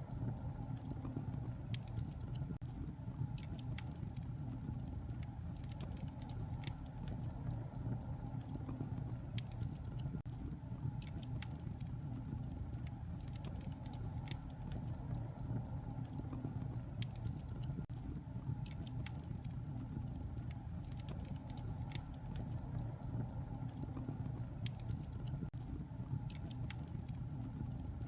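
Wood fire burning in a fireplace: a steady low rumble of flames with frequent small crackles and pops scattered throughout.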